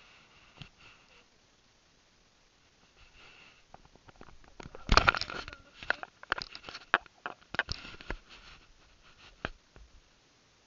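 A dog sniffing and nosing close at the camera microphone, with crackling rustles and sharp knocks from the camera being handled, mostly from about five seconds in.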